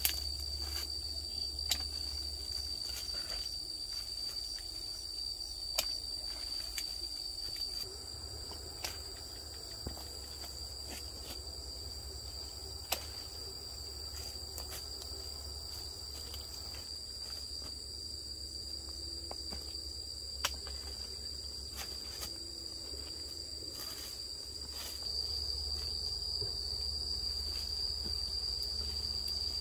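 Steady high-pitched insect drone, with scattered sharp clicks over it.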